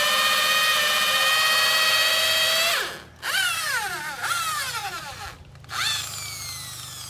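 Electric drill with a hole saw cutting into a wooden gate for a lock, its motor whining steadily for about three seconds. It then stops and is run in several short bursts, winding down in pitch after each.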